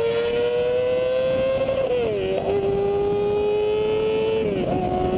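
Yamaha YZF-R6's inline-four engine revving high under hard acceleration. The pitch climbs, then drops with an upshift about two seconds in and again near the end. Wind and road noise sit underneath.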